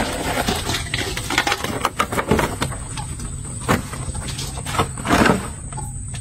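Clicking and scraping of small crabs and fish being handled in a stainless steel basin, with two louder knocks against the metal in the second half.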